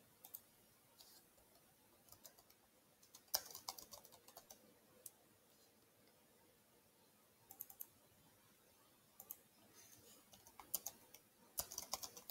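Faint, sparse keystrokes on a computer keyboard as words are typed: small clusters of clicks with pauses of a few seconds between them, the busiest burst about three seconds in.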